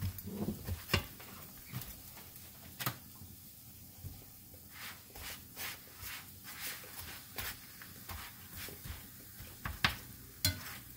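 Metal tongs clicking and scraping against a skillet as a roti is shifted and turned, a scattering of separate clicks, over a faint sizzle of the flatbread frying in a little oil.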